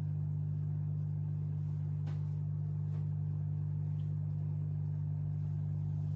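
COMFEE' KWH-TD602E-W compact dishwasher running: a steady low hum, with a faint click about two seconds in.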